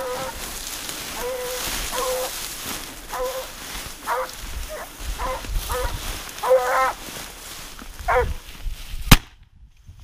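Hunting dogs baying during a wild boar hunt: about ten short, pitched barks at irregular intervals, with a quick cluster a little past halfway. A single sharp crack about nine seconds in is the loudest sound.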